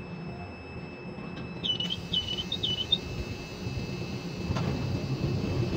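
Ship-to-shore quay crane machinery running as the spreader lifts a container off a truck chassis: a steady low rumble with faint steady high tones. Three short chirping tones sound about two seconds in, and a sharp click comes at the end.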